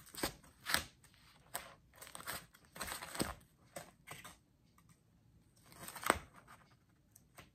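Plastic card-sleeve pages in a three-ring binder rustling and crinkling as they are flipped over one after another, each turn ending in a short slap as the page lands. The loudest page turn comes about six seconds in.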